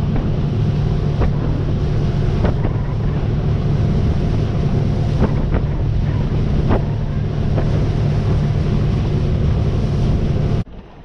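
A small fishing boat running at speed across choppy water: the motor's steady low drone under heavy wind buffeting on the microphone, with a few sharp slaps as the hull hits waves. The sound cuts off abruptly near the end.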